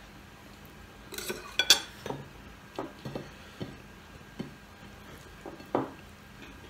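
Metal cutlery clinking against ceramic plates as it is set down, a quick cluster of sharp clinks about a second in. Softer scattered clicks and taps follow.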